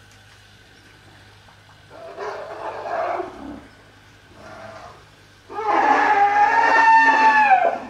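African elephants calling at a waterhole: a rough call about two seconds in, a short one a little later, then a loud, long trumpet of about two seconds near the end.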